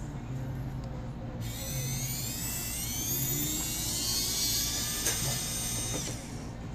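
Small electric tool motor whining, its pitch climbing for about four seconds before it winds down and stops, over a low steady hum.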